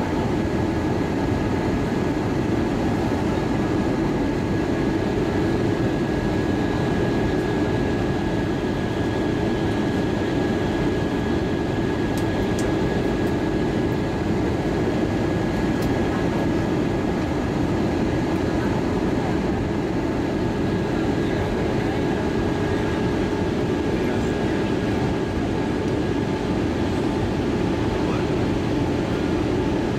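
Steady cabin noise inside an Airbus A320-232 in descent: the low rush of airflow over the fuselage and the drone of its IAE V2500 turbofan engines, with a thin steady whine over it.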